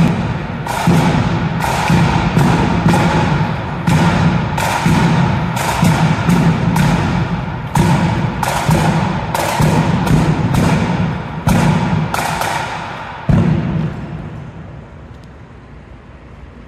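Marching band drums, a bass drum and a snare drum, beating a steady march cadence with heavy strokes that ring in a large hall. The beating stops about thirteen seconds in and the sound dies away.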